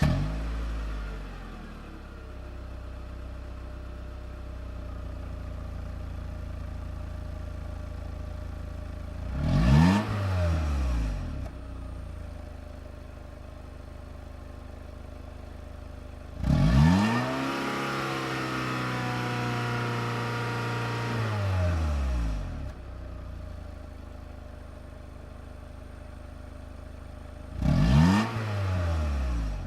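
Car engine idling, revved briefly about ten seconds in, then held at high revs for several seconds from about the middle before dropping back to idle, and blipped twice near the end.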